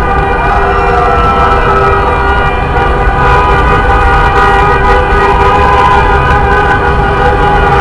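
Many vehicle horns honking at once in celebration, long overlapping blasts at several pitches with no break between them.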